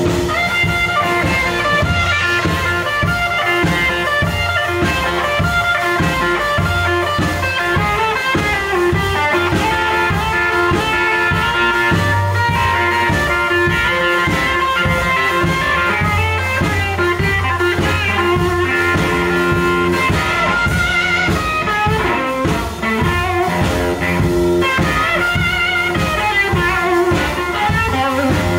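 Live blues band playing an upbeat instrumental break: a hollow-body electric guitar solo over a drum kit and bass.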